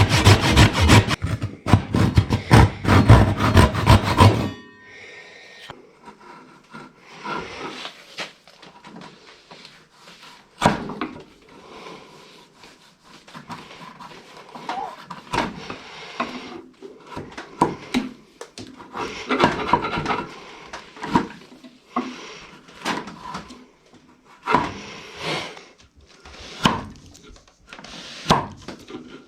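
Makita 7104L chain mortiser cutting into wood with a loud, fast-chattering chain, shutting off abruptly about four seconds in. Then scattered light wooden knocks and rubbing, with one sharper knock about ten seconds in.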